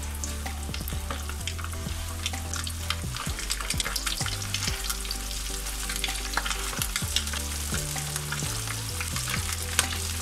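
Flour-coated chicken pieces frying in a pan of hot sunflower oil, lowered in one after another: a steady sizzle with dense crackling pops.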